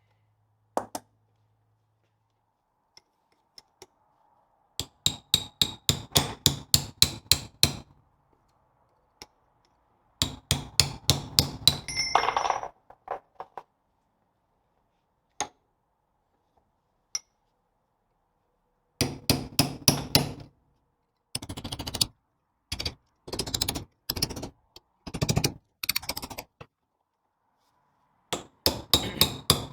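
Hammer striking steel in several quick runs of blows, about six or seven a second, while the crown wheel is being knocked free of a Land Rover Series 2 differential carrier. One metallic ring sounds midway.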